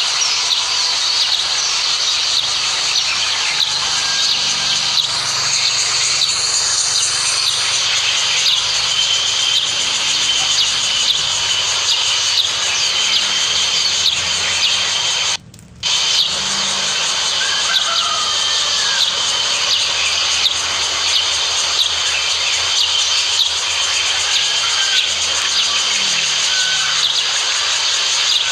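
White-eye birds chirping with short, high calls over a steady high-pitched hiss. The sound cuts out for about half a second a little past the middle.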